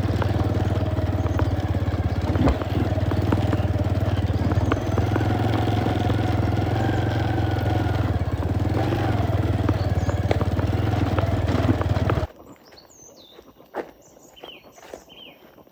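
Motorcycle engine running steadily at an even speed, with small knocks and rattles over it. About twelve seconds in it cuts off abruptly, leaving quiet with a few short high bird chirps.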